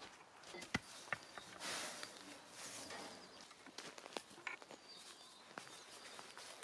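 Footsteps and a loaded wheelbarrow moving over dry leaf litter: crunching and rustling with a few sharp knocks and rattles, the loudest knock about a second in. Faint bird chirps now and then.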